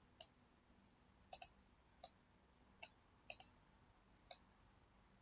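Faint computer mouse button clicks, about eight of them at irregular intervals, two of them in quick pairs.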